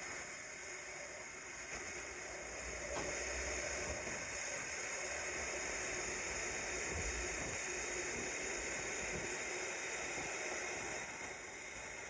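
TIG welding arc hissing steadily while a nut is welded onto a snapped exhaust stud. It grows louder about three seconds in and drops back near the end.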